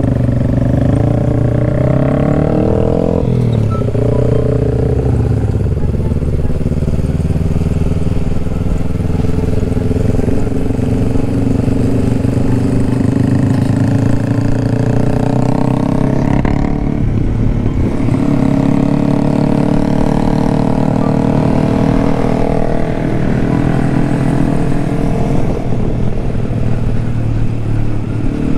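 Honda CBR150R's single-cylinder four-stroke engine running as the bike is ridden, heard from the rider's position. The engine note shifts with throttle, dropping and climbing again about 3 seconds in and again about 17 seconds in.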